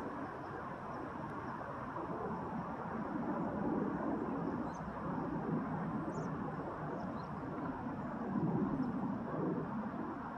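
Outdoor ambient noise: a steady, even rumble that swells twice, about a third of the way in and again near the end, with a few faint high chirps near the middle.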